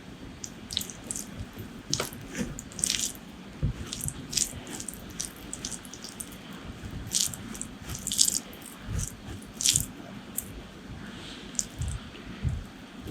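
Close-miked wet eating sounds: irregular short smacks, clicks and squishes of chewing and biting saucy curry food.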